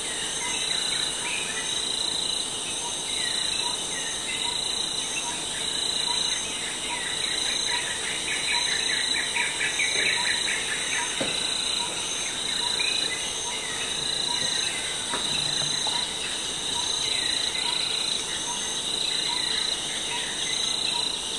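Jungle ambience: a steady, high-pitched chorus of insects, one band pulsing, with birds chirping and trilling over it. The birdsong is busiest about halfway through. A faint, regular pip repeats throughout.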